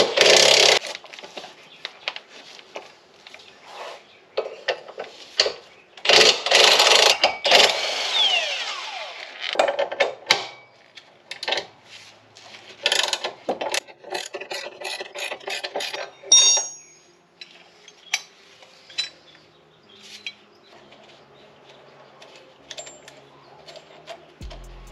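Cordless impact wrench running in two long bursts, at the start and about six seconds in, as it undoes the bolts holding the rear axles to the differential. After that come short clicks and metallic knocks of a hand wrench and tools on the bolts, growing sparse near the end.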